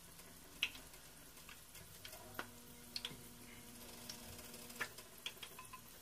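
Scattered light clicks and taps of a plastic spoon against a ceramic bowl and plate as minced steak filling is scooped out and spread on an egg roll wrapper, over a faint steady hiss.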